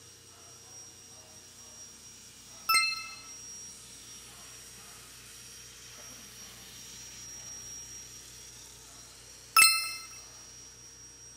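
Two sharp metallic dings about seven seconds apart, each ringing out briefly, over a faint steady hum.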